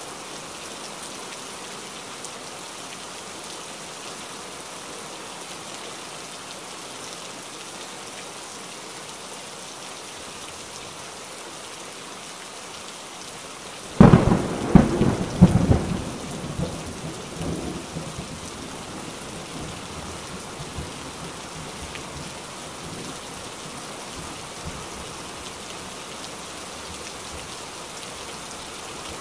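Steady rain falling, with a sudden loud thunderclap about halfway through that rumbles and fades over a few seconds.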